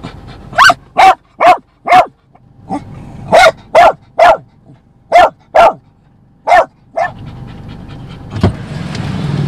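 A dog barking repeatedly, about ten sharp barks in quick runs of two to four. Near the end there is a single knock, followed by a steady low rumble that grows louder.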